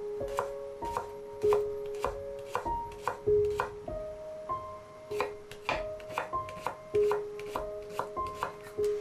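Kitchen knife slicing a Japanese leek into rounds on a wooden cutting board: the blade knocks on the board about two to three times a second, over soft piano music.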